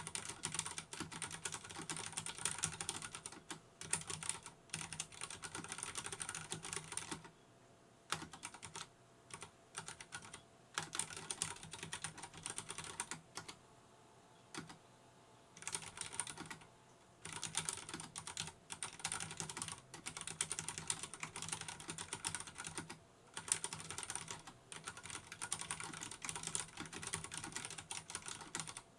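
Typing on a Vortex Race 3 RGB mechanical keyboard with tactile Cherry MX Brown switches: rapid runs of key clacks, broken by brief pauses.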